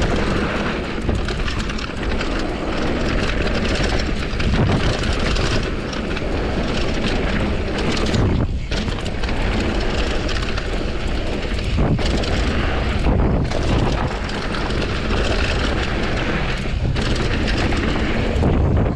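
Steady wind noise on an action camera's microphone as a Commencal Supreme DH downhill mountain bike descends at speed, with tyres on the dirt trail and the bike rattling over rough ground.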